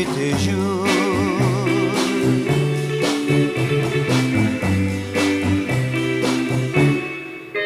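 Instrumental passage of a 1960s Tahitian-French pop record: a wavering guitar melody over bass notes and a steady beat, with no singing.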